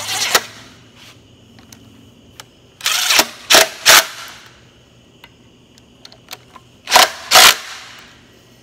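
DeWalt cordless impact driver tightening the bolts of a tractor brake housing in short bursts: one at the start, three in quick succession about three seconds in, and two more about seven seconds in.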